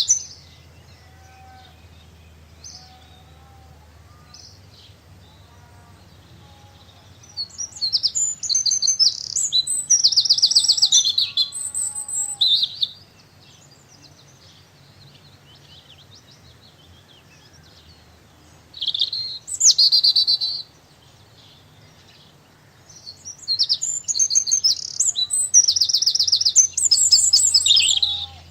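A songbird singing loud phrases of rapid, high-pitched trills in three bouts, the middle one short, with quieter calls between them.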